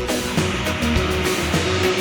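Background rock music with electric guitar, bass and drums.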